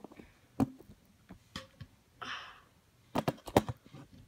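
Handling noise from a phone camera being moved and set up: a few scattered clicks and knocks, the loudest cluster of them near the end, with a short hiss about halfway through.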